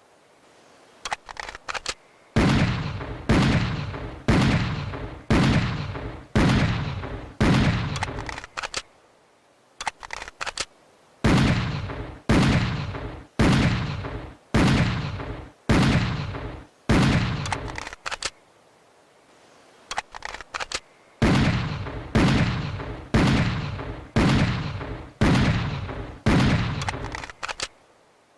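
Schofield .45 revolver firing in three strings of shots about two-thirds of a second apart, each shot ringing out briefly. Between the strings come pauses of a couple of seconds with a few small clicks.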